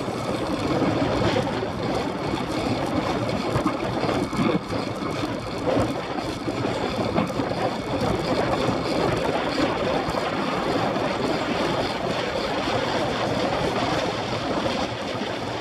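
Steady rush of wind on the microphone, mixed with tyre noise, as a track bicycle is ridden fast, at over 20 mph, around a banked concrete velodrome.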